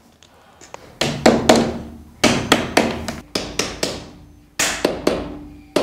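Claw hammer striking a small wooden tapping block to drive a profile strip's tab into the groove of a cabinet panel: about a dozen sharp knocks in quick bunches, each with a short ringing tail.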